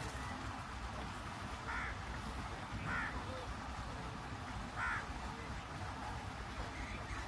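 A bird giving several short calls, a second or two apart, over a steady low rumble.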